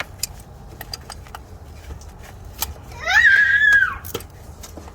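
A young child's high-pitched cry, about a second long, rising, holding and then falling in pitch, about three seconds in. Light scattered clicks of hand tools on metal sound around it.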